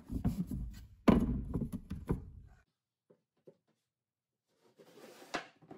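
Knocks and thunks of a back panel being pushed and tapped down into its groove in a flat-pack TV stand: one sharp knock just after the start, a louder one about a second in, then a few lighter taps. A single sharp click near the end.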